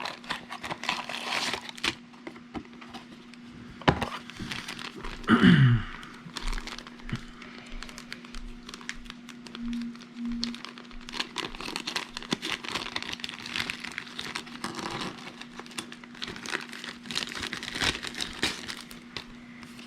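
Packaging being opened and handled: crinkling of wrapping, with scattered clicks, cracks and light knocks. A short, louder falling sound comes about five seconds in, over a steady low hum.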